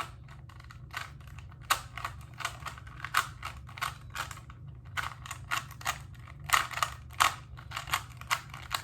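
Original Rubik's brand 3x3 cube being turned by hand, its plastic layers clicking and clacking in irregular bursts, a few turns a second.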